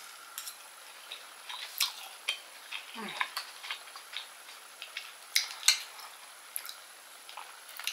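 Metal fork clicking and scraping against grilled oysters' shells, with eating sounds, as a run of scattered sharp clicks, the loudest about two seconds in and again around five and a half seconds.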